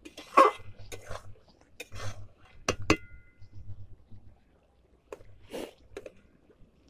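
Flat steel spatula scraping and clinking against a steel kadai while stirring a thick curry of pumpkin and potato chunks, in irregular strokes. One strike about three seconds in rings briefly.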